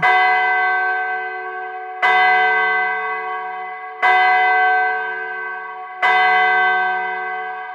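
A single large church bell tolling slowly, struck four times about two seconds apart, each stroke ringing on and fading into the next.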